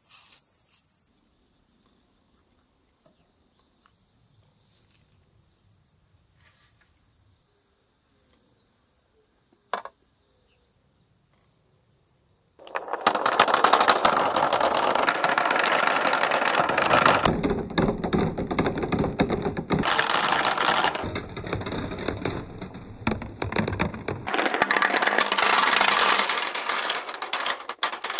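A stream of large clear plastic balls rolling and clattering down a long transparent plastic pipe and dropping into a plastic basin: a loud, rapid, continuous rattle with a rumble under it. It starts about halfway through and shifts in tone a few times as the balls pass along the pipe. Before it, only faint insect chirring and a single click.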